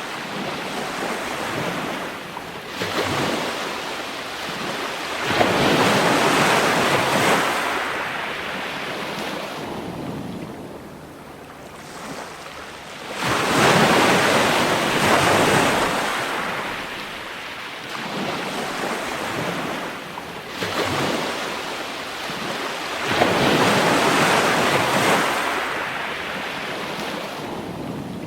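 Ocean waves breaking and washing in, one surge after another at intervals of several seconds, with a steady hiss of surf between them.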